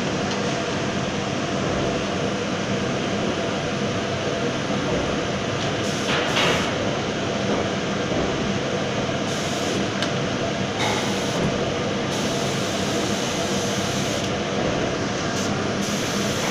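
Steady rushing air of a paint spray booth as an electrostatic spray gun sprays water-based paint, with the hiss turning brighter for short spells several times.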